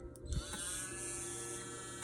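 A small handheld electric tool switched on about a third of a second in, its motor running with a steady high whine and a hiss.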